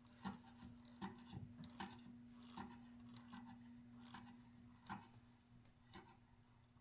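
Faint glugging of motor oil pouring from a jug into a funnel: soft, short gulps about once a second, over a steady faint hum.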